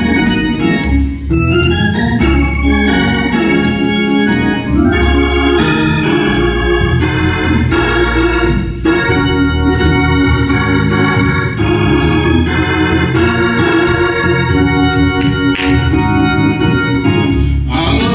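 Organ music: held chords that change every second or so.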